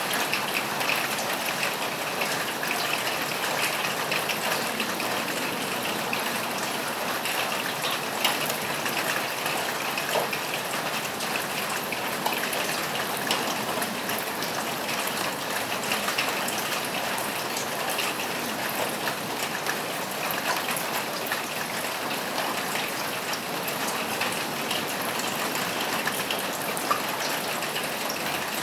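Steady rain falling on a roof, with a few louder drops ticking now and then.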